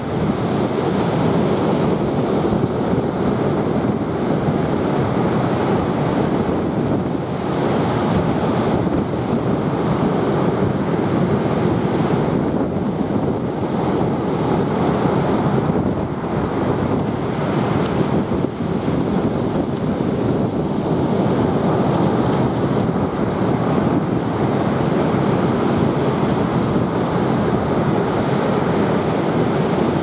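Storm surf breaking and washing up a sandy beach, with strong wind blowing across the microphone. It is a continuous heavy roar of water and wind that swells and eases slightly from wave to wave.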